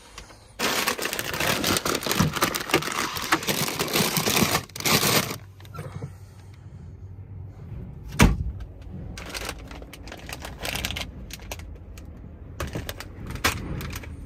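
Grocery packaging rustling and crinkling loudly for about five seconds as things are handled in a truck cab. About eight seconds in comes a single sharp knock, then scattered lighter clicks and handling sounds.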